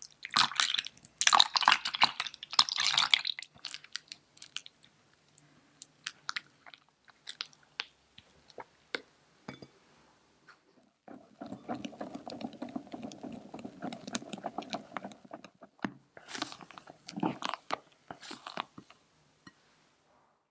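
Milk pouring onto pumpkin purée in a glass bowl, then wet squelching and scraping as the mixture is stirred against the glass, with scattered small clicks.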